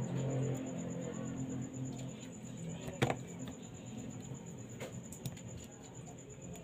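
A small precision screwdriver and tiny screws clicking and tapping against a phone's midframe as the screws are driven in: one sharp click about three seconds in, then a few fainter ticks.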